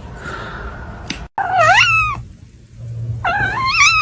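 A cat meowing twice, two long drawn-out meows that rise and then fall in pitch.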